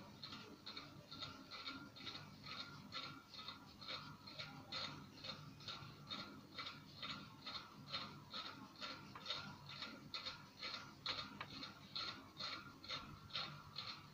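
Steady, rapid mechanical clicking, about four ticks a second, even and unchanging, like a small ratcheting mechanism.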